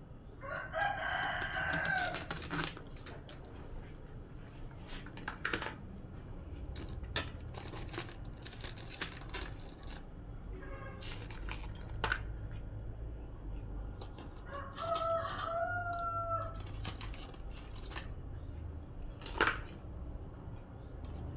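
Two long, drawn-out animal calls of about two seconds each, one near the start and one about two-thirds of the way in, among scattered knocks and clatter from a stainless steel stockpot of boiled crabs being handled.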